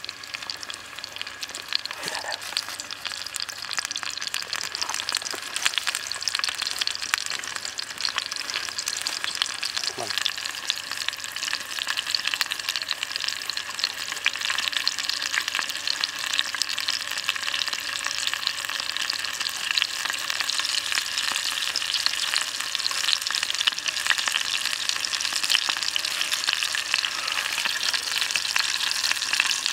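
A chicken leg frying in a shallow pan of hot oil, with a steady dense sizzle and crackle that grows slowly louder.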